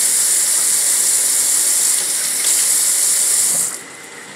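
Water running from a kitchen tap into the sink for washing, a steady hiss with a brief dip about two seconds in, shut off abruptly near the end.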